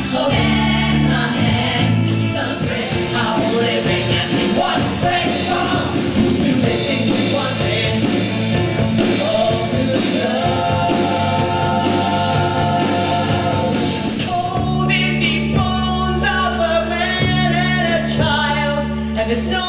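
Music from a stage musical number: a group of singers over a live band, with long held notes a little past the middle. About two-thirds of the way through, the music changes to a new steady bass line.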